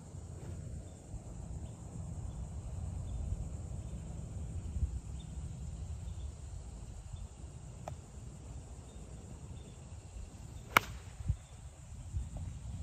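A golf iron strikes the ball out of a sand bunker: one sharp crack about three-quarters of the way through. Under it, a steady low wind rumble on the microphone and faint insect chirping.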